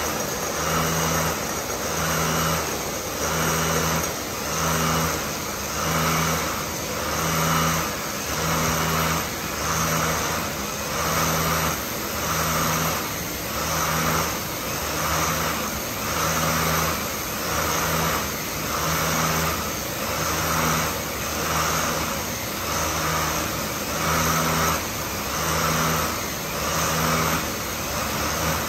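Can depalletiser running on a canning line: a steady mechanical din of machinery and empty cans, with a hum that swells and fades about once a second.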